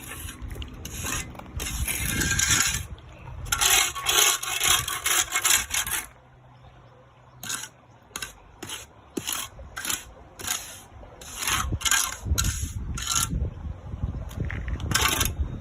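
Trowel scraping across wet concrete in repeated smoothing strokes: quick strokes at first, a short pause, then single strokes about once a second.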